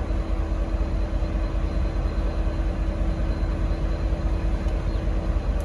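V/Line N class diesel-electric locomotive N465 running with a steady low rumble and a constant hum; no horn sounds.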